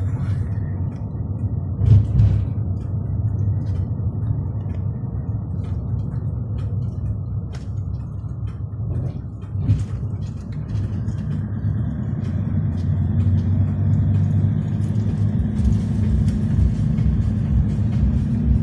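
Steady low rumble of road and engine noise heard from inside a moving vehicle, with a couple of brief knocks. It grows a little louder in the second half.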